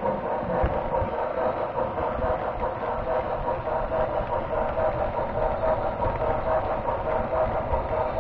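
HO scale model train running steadily along the track, heard up close from a camera riding on it: a constant mechanical hum with a steady whine and rumble.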